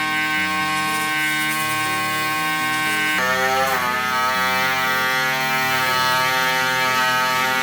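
A small power tool whines steadily under background music, and its pitch dips briefly and recovers about three and a half seconds in.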